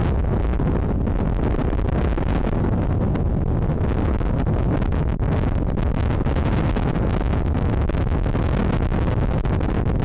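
Wind buffeting the microphone: a steady, loud, low rumble with hiss above it.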